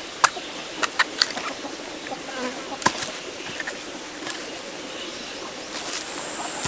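Knife cutting and trimming fresh bamboo shoots: a scatter of sharp cuts and knocks, most in the first few seconds. Insects keep up a steady background.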